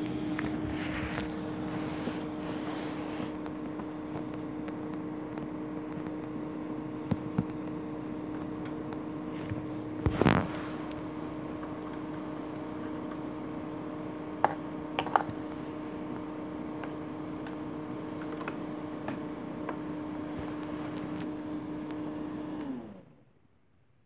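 Small electric fan motor of a homemade air-conditioner unit running with a steady hum, with a few light clicks and taps over it; the hum cuts off abruptly about a second before the end.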